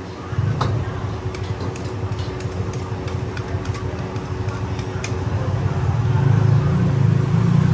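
Low rumble of a gas wok burner that starts about half a second in and grows louder near the end, over a steady hum, with scattered light clinks of tongs on plates and bowls.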